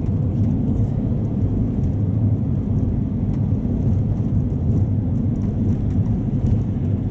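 Cabin noise of a Luidor-223206 minibus (Mercedes-Benz Sprinter Classic) under way: its diesel engine and tyres make a steady low rumble inside the passenger compartment.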